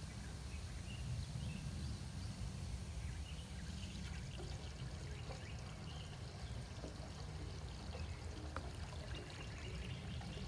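Water welling up out of an outdoor sewer cleanout and spilling over the ground as it lifts and tips off a sewer popper relief cap, a faint steady pouring that grows a few seconds in. It is the sign of a backed-up line relieving itself outside instead of into the house.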